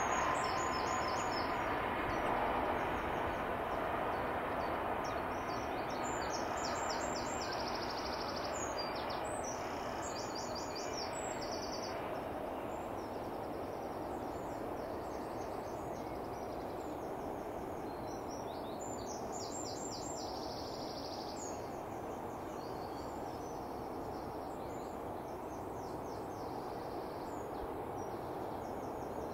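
Intermodal container freight train rolling past at a distance behind a diesel locomotive, a steady rumble that slowly fades. Small birds chirp in short bursts over it.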